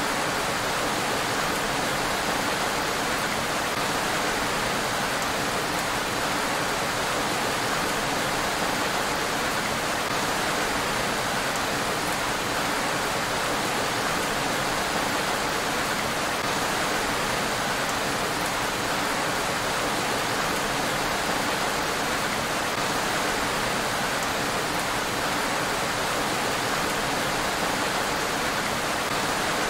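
Steady rain falling on a road: an even, unbroken hiss with no thunder.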